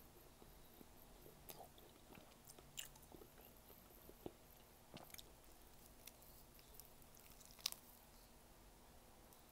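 Faint close-up chewing and biting on a piece of cooked squid, with scattered short mouth clicks and smacks; the sharpest smack comes near the end.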